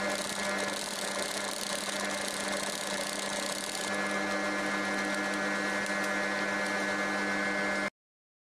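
Industrial sewing machine running steadily, its electric motor humming evenly while stitching through layered leather coaster discs; the sound cuts off suddenly near the end.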